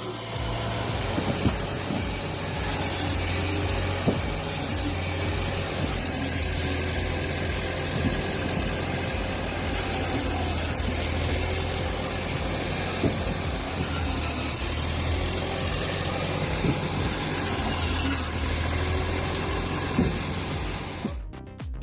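Engine of a homemade firewood-cutting machine running steadily, with scattered knocks and clatters of wood being handled and cut.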